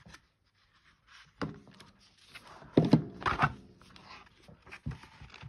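Handling of a paper planner: pages being turned and a few soft knocks and thuds of the book against a table.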